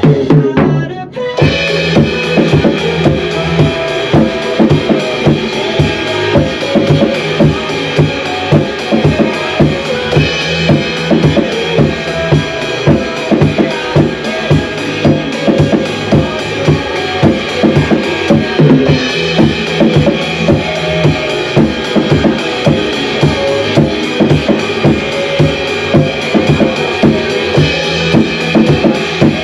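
Acoustic drum kit played along to a pop backing track, a steady groove of bass drum and snare strikes over the music. The playing drops out briefly about a second in, then the beat resumes.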